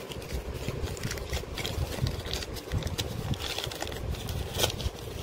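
A paper carrier bag and the plastic wrapping inside it rustling and crinkling as they are handled, with irregular crackles and low handling bumps.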